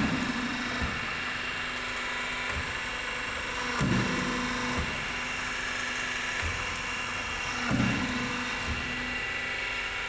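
A crimping machine bending corrugated roofing sheet runs with a steady motor hum. A heavier clunk comes about every four seconds, at the start, about four seconds in and near eight seconds in, as the crimping dies step the sheet round the curve.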